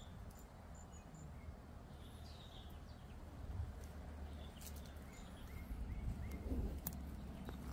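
Faint outdoor ambience: a steady low rumble with scattered short, high chirps and a few sharp clicks.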